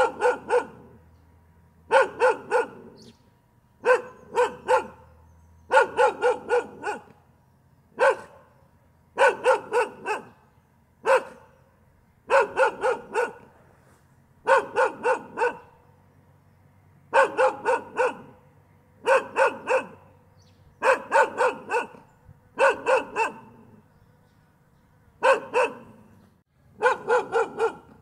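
A dog barking repeatedly in quick runs of two to five barks, with a new run every second or two.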